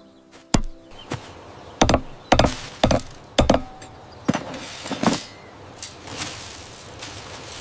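An irregular series of about ten sharp knocks or blows, some in quick pairs.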